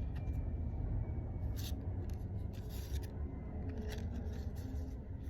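Pokémon trading cards being handled: a few brief scratchy rubs and slides of card against card, over a steady low rumble.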